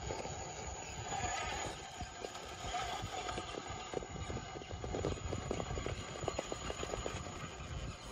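Radio-controlled rock crawler clambering over rock: irregular clattering knocks of its tires and chassis on stone, coming thicker in the second half.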